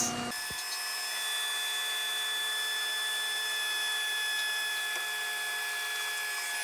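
Cordless drill spinning a drill-attachment water pump at a steady speed, a continuous even whine; the pump is a little noisy.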